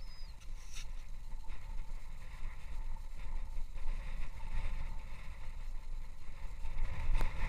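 Wind buffeting the microphone on open ice, a fluctuating low rumble, with a faint steady high tone running under it.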